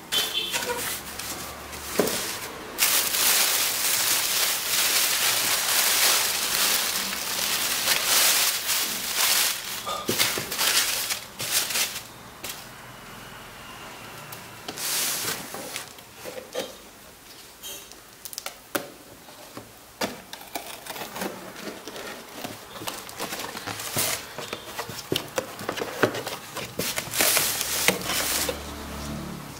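Plastic packing crinkling and rustling as it is handled inside a cardboard shipping carton, loud and continuous for about the first ten seconds. After that, quieter scattered scrapes and taps of hands on cardboard and a shrink-wrapped box.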